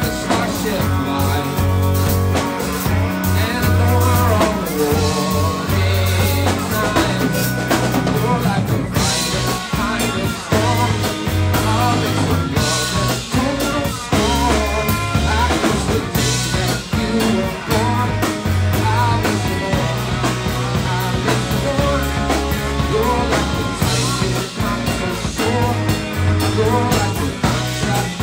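A live band playing rock music, with a drum kit and a bass line of changing notes.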